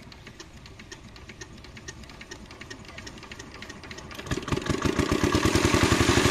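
Pond-draining water pump engine starting: regular clicks at first, then about four seconds in the engine catches and runs loudly with a fast, even beat.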